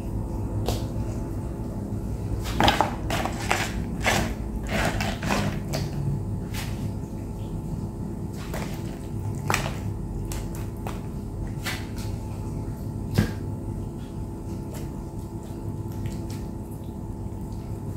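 Raw whole chickens being handled and set down on a plastic tray: scattered soft knocks and clicks, a cluster of them a few seconds in and one sharp click later, over a steady low hum.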